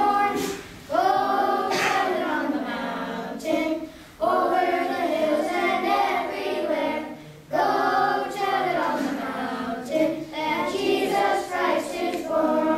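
Children's choir singing together in phrases of a few seconds each, with brief breaths between them.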